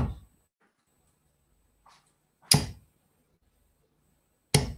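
Three steel-tip darts striking a bristle dartboard, one after another about two seconds apart, each a short sharp thud.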